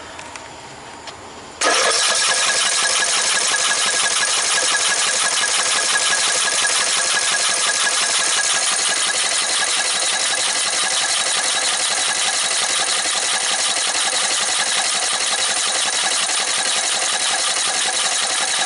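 Lawn tractor's 14.5 hp Briggs & Stratton engine turning over on its key start, beginning suddenly about a second and a half in and going steadily for about 18 seconds: a start attempt after a blocked fuel line was replaced.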